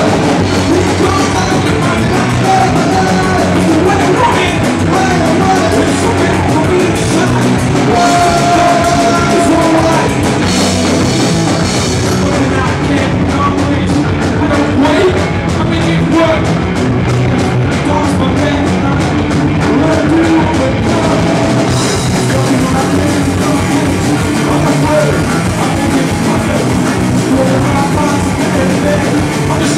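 Rock band playing live, with electric guitars, bass and drum kit behind a male lead singer. The bright top end drops away for about ten seconds in the middle, then returns.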